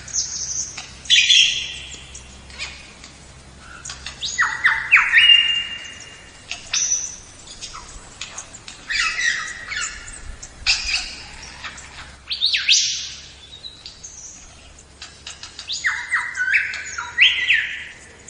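Birds calling in short bursts of quick, high chirps and squawks, each burst a run of rapid notes stepping in pitch, coming every two to three seconds.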